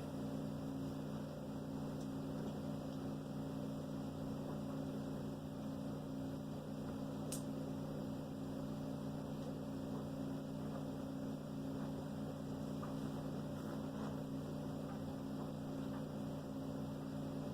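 Steady low background hum made of several fixed tones, with one faint click about seven seconds in.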